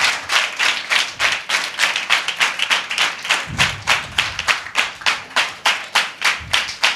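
Church congregation clapping hands in praise in a steady, even rhythm of about four claps a second.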